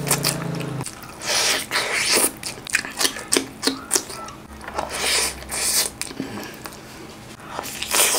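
Close-miked eating: a person biting into and chewing saucy chicken with the hands, a quick run of wet bites and chews. A low hum sounds at the start and stops about a second in.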